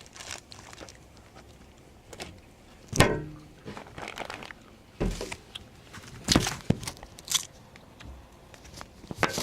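Crunchy snacks being bitten and chewed, with snack bags crinkling, in scattered short bursts. The loudest comes about three seconds in.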